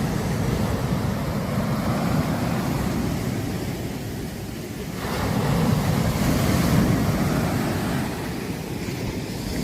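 Sea surf breaking on a beach: a steady rushing wash, with a bigger wave surging in about halfway through and easing off near the end.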